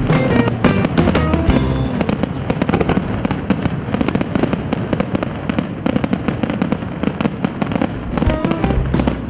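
Aerial fireworks bursting and crackling densely over a playing music soundtrack, the crackle thickest through the middle of the stretch.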